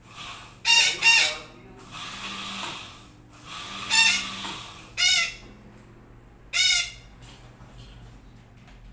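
Sumatran betet parakeet calling with loud, short squawks: two in quick succession about a second in, then three more single calls spaced a second or so apart.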